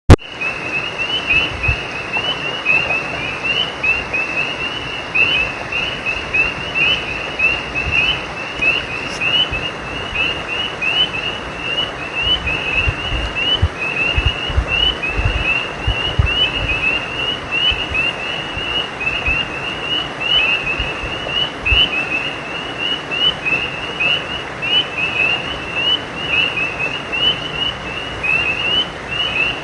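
A night chorus of frogs calling by a creek: many short, rising, high chirps overlapping in a continuous dense chorus, over a steady hiss with occasional low thuds.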